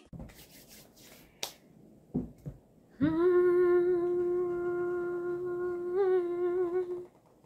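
A woman humming one long, steady note for about four seconds, wavering slightly near the end. Before it there is a single click and a few soft knocks.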